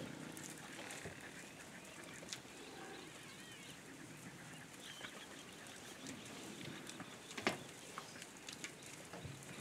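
Faint sounds of an African buffalo herd: low grunts and the shuffle of many animals moving, with small birds chirping. A sharp click about seven and a half seconds in is the loudest thing.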